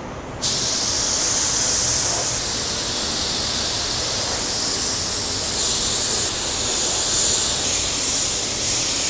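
Compressed-air paint spray gun spraying basecoat tint: a steady, high hiss that starts suddenly about half a second in and keeps going, wavering slightly in level.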